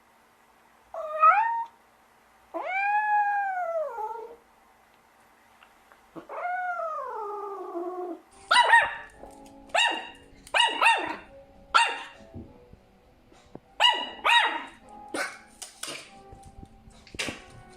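Three long pitched calls, each rising and then falling, followed by a dog barking repeatedly in short, sharp barks, often in quick pairs.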